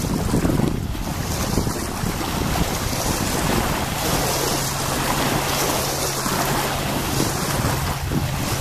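Big-block Chevy V8 jet boat running on the river, a steady engine drone coming through about halfway in. Wind buffets the microphone throughout.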